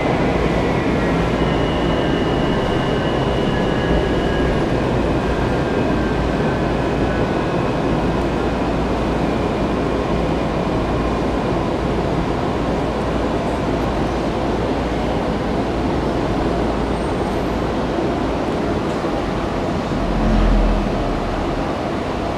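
Washington Metro 3000-series railcar running through a tunnel and slowing into a station: a steady rumble of wheels on rails with a whine that falls in pitch over the first few seconds as the train brakes. A low bump comes near the end as the car draws to a halt.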